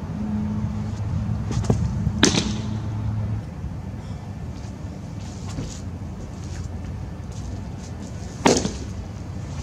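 Two sharp pops of a pitched baseball hitting a catcher's leather mitt: a changeup about two seconds in and a fastball near the end, over a steady low hum.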